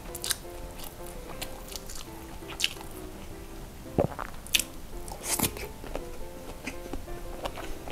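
Close-up eating sounds of a man chewing jumbo cheese sausage: irregular wet mouth clicks and smacks, the loudest about four and five and a half seconds in, over soft melodic background music.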